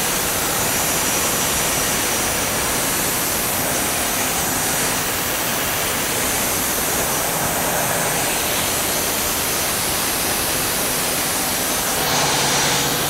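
Homemade band sawmill running steadily, its blade sawing lengthwise through a spruce log. It grows a little louder and brighter near the end.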